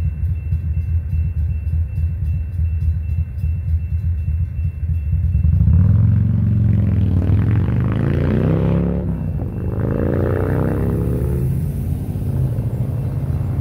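Railroad crossing's Safetran mechanical bell ringing in rapid strokes over a low rumble of idling traffic. It stops about five seconds in as the crossing deactivates and the gates rise. Then car engines run up and down in pitch as traffic pulls away across the tracks.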